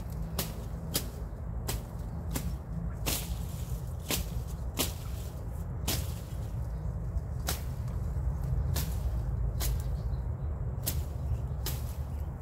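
Steady low rumble with sharp, short clicks about once a second.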